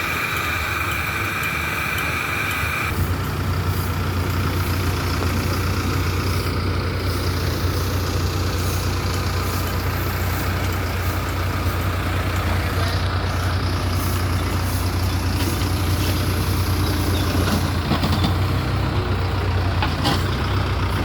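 Heavy diesel engine of road-construction machinery running steadily. For the first three seconds a high steady whine sits over it; then the whine stops and a deeper, stronger engine hum takes over.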